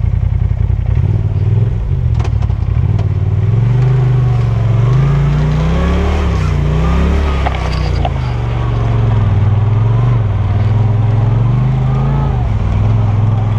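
Polaris RZR Turbo side-by-side's turbocharged twin-cylinder engine running under throttle. Its pitch rises and falls again and again as the throttle is worked on and off, climbing highest about halfway through.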